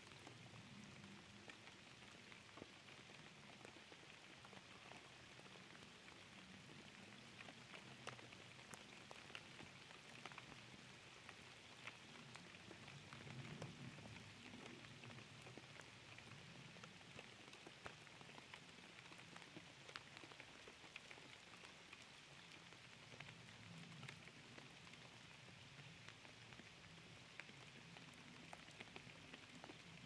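Rain falling on a pond's surface: a quiet, steady hiss made of many small drops ticking on the water.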